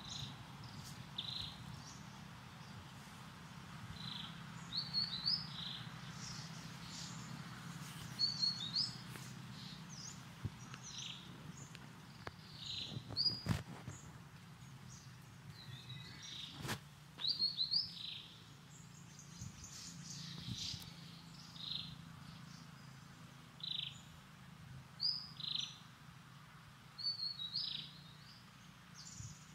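Small birds chirping, short high chirps with quick pitch glides coming every second or two, over a low steady hum. Two sharp clicks stand out about halfway through.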